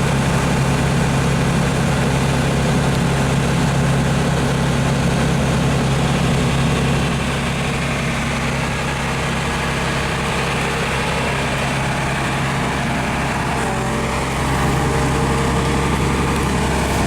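Hyundai R500LC-7 crawler excavator's diesel engine running steadily with a deep, even hum, a little quieter through the middle and picking up again near the end.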